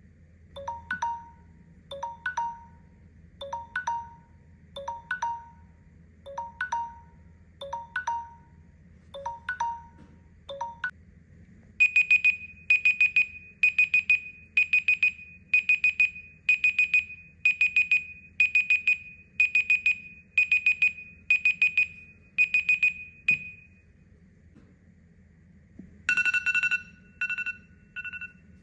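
Smartphone alarm tones ringing one after another. First a short repeating chime about once a second, then, after a brief gap, a louder, higher-pitched beeping alarm repeating about once a second. It stops, and after a short pause a third alarm tone starts near the end.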